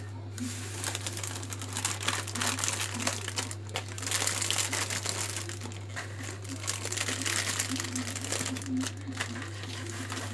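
Thin plastic bag crinkling and rustling as hands handle it and pack dry square biscuits into it, an irregular crackle that keeps going.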